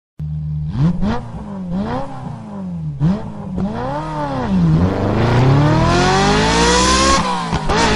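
Engine revving: a few quick blips rising and falling in pitch, then a long steady climb in pitch with a sudden drop, like a gear change, about seven seconds in, before it climbs again.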